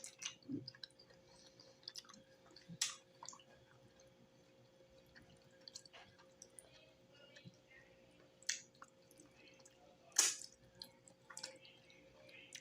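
Close-miked wet chewing and lip smacking while eating stewed cow foot, with scattered sharp smacks, the loudest about three, eight and a half, and ten seconds in.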